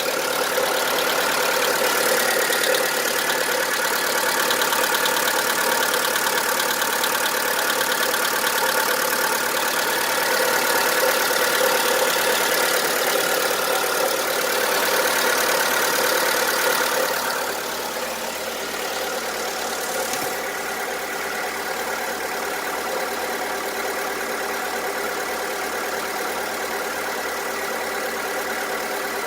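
VW Polo 1.4 16V BUD four-cylinder petrol engine idling with a rapid, diesel-like knock, which the owner takes for piston slap: worn piston skirts rocking against the cylinder walls. It becomes somewhat quieter a little over halfway through and runs on steadily.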